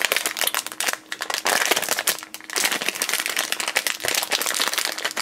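Silver foil blind-bag pouch being crinkled and pulled open by hand, a dense irregular crackling.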